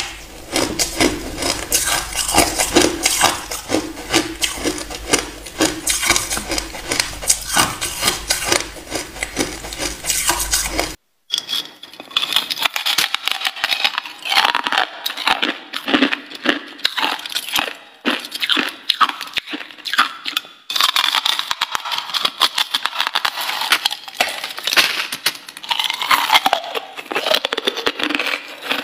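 Close-up crunching of chunks of freezer frost ice being bitten and chewed: a dense run of sharp cracks and crackles. The sound breaks off briefly about eleven seconds in, and the crunching then sounds crisper.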